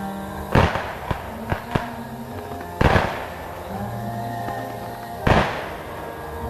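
Fireworks bursting overhead: three heavy booms about two and a half seconds apart, with a few smaller sharp cracks after the first. Music plays steadily underneath.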